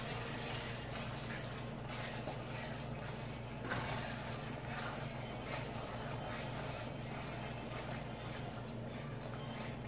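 Red wine being poured into a hot enamelled cast-iron pot of browned onions and flour, hissing and bubbling steadily as a wooden spoon stirs and scrapes the bottom: the pot is being deglazed.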